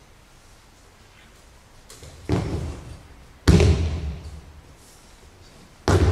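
Aikido breakfalls: a body thrown onto tatami mats, slapping down heavily three times, the loudest about halfway through, each fall trailing off in the hall's echo.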